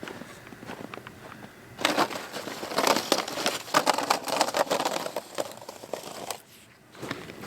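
Close crinkling and rustling, a dense run of rapid crackles starting about two seconds in, dropping away briefly near the end.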